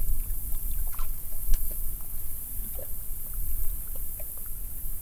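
Water lapping against a small boat's hull, with a gusting low rumble of wind on the microphone and a few faint, scattered ticks.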